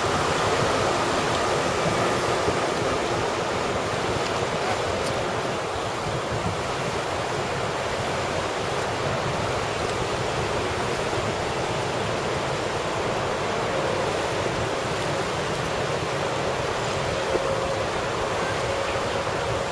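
Steady rush of moving water, an even hiss with no break.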